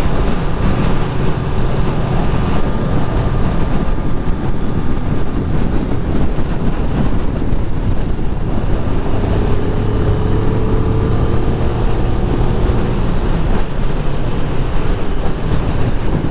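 Kawasaki Ninja 400's parallel-twin engine running under way, mixed with strong wind rushing over the microphone. About nine seconds in the engine note changes and then climbs slowly.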